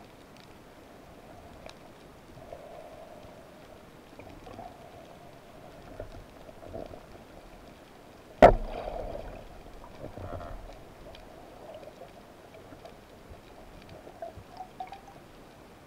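Underwater ambience with faint scattered ticks, and one sharp, loud knock about halfway through, followed by a short low rumble.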